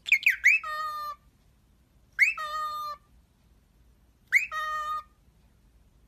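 Cockatiel calling three times, about two seconds apart: each call a sharp upward chirp followed by a short held note, the first one opening with a quick run of chirps.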